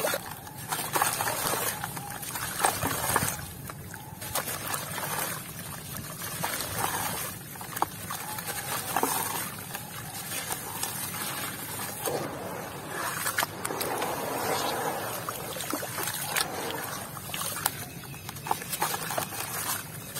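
Hands squeezing, sloshing and crumbling clumps of wet, grainy red dirt in a tub of muddy water: watery swishing and splashing with gritty crunching, and crumbled grains falling back into the water.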